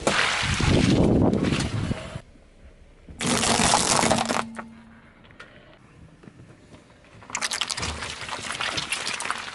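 A car tyre rolls onto a plastic bag of water beads and bursts it, with a wet, splashing crunch and squelch. About three seconds in comes another short, loud burst of crunching. Near the end a long crackling squish follows as a tyre presses down on a red jelly-like block.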